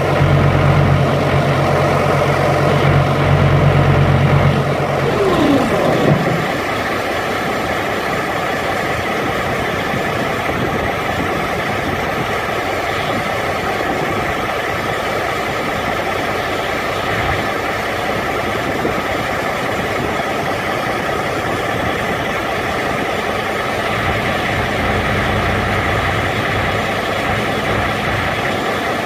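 Carrier Transicold reefer unit running its automatic pretrip. About five seconds in, the deep low hum winds down with a short falling whine as the pump-down test ends and the pressure hold check begins. After that the unit keeps running with a steadier, lighter mechanical noise.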